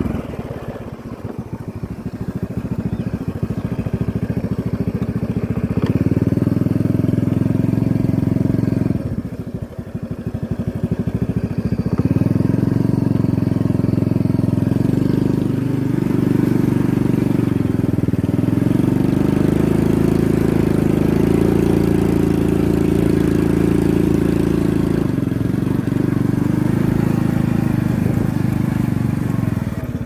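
Motorcycle engine running under way, its note steady for long stretches. It eases off briefly about nine seconds in, picks up again, and drops back once more near the end.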